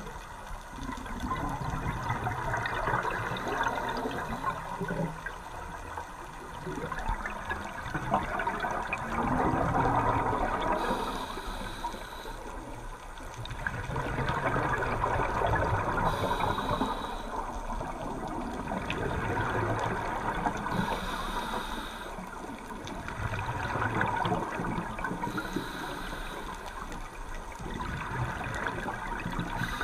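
Scuba diver's regulator breathing underwater: exhaled bubbles rush out for a few seconds, then a short hiss of the inhale follows, one breath about every four to five seconds.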